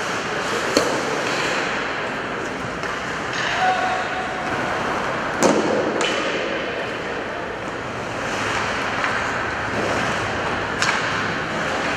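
Ice hockey play in an indoor rink: a steady wash of skate and arena noise, broken by about five sharp clacks of stick and puck, the loudest a little past halfway.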